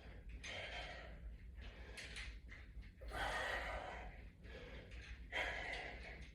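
A man's heavy breathing from exertion during resistance-band pulls: faint, breathy breaths in and out about once a second.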